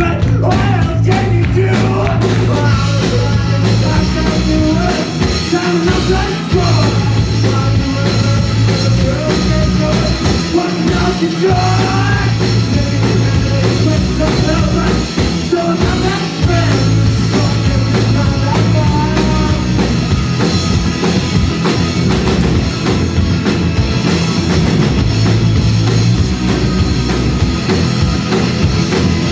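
Live rock band playing loudly, with drums, a steady bass line and a singer's voice weaving over it.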